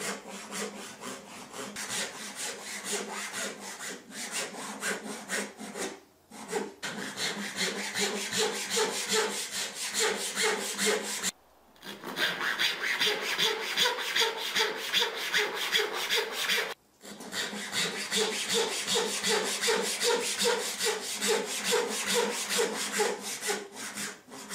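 A fine-toothed Japanese pull saw cutting kerfs across a wooden beam, in quick, even strokes, to clear the middle of a halving joint. The sawing stops briefly three times, at the breaks between cuts.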